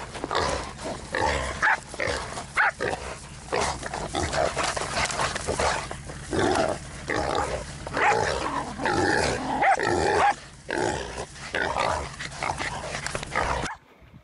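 A boar squealing in repeated loud cries while dogs, a Jack Russell among them, bite and hold it, with the dogs' own noises mixed in. The racket cuts off suddenly near the end.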